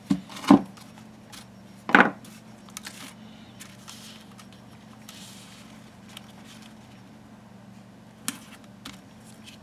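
Light handling sounds on a worktable: a few short knocks and taps, the loudest about two seconds in, as a strip of thin metal foil is laid over mesh and taped down with painter's tape. A faint steady hum runs underneath.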